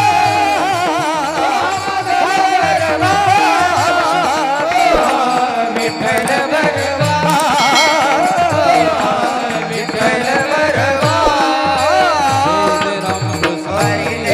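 Marathi devotional abhang sung by male voices with wavering, ornamented melody, over sustained held tones and a steady beat on the pakhawaj drum.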